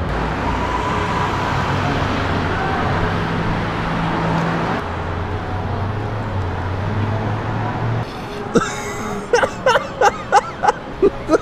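Steady rumble of road traffic or a running car, with a change in the sound about five seconds in. Near the end, a quick run of short, evenly spaced voice bursts, about three a second.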